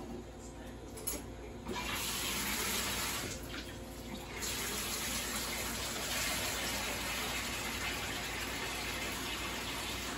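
Kitchen tap running, water pouring steadily into a container, turned on about two seconds in after a couple of light knocks.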